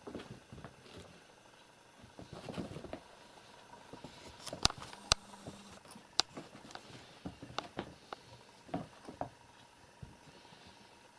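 Two kittens play-fighting on a carpet around a pair of felt boots: soft pattering and scuffling of paws, with a few sharp clicks around the middle.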